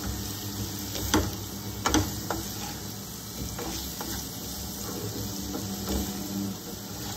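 Potato cubes frying in coconut oil in a nonstick kadai on a low gas flame, sizzling softly while a spatula stirs and turns them. A few sharp clicks of the spatula against the pan, the loudest about one and two seconds in.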